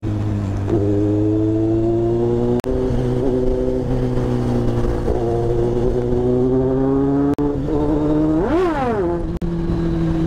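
Kawasaki inline-four motorcycle engine running under way at a steady cruise, its pitch slowly climbing, with one quick rev up and straight back down about eight and a half seconds in. The sound drops out for an instant three times.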